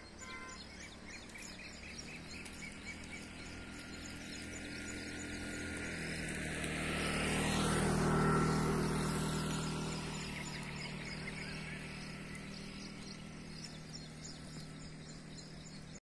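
A vehicle passes, its sound building slowly to a peak about eight seconds in and then fading, its pitch dropping as it goes by. Birds chirp throughout.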